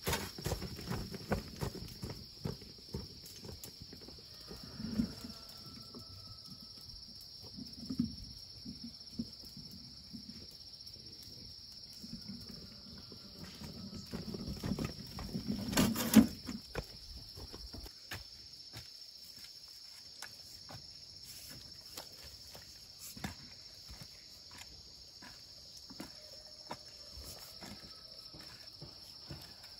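Insects buzzing in a high, steady drone, over footsteps and the knocking of a loaded wheelbarrow on a dirt path. There is a loud knock about 16 seconds in, and the second half is quieter, with only scattered light taps.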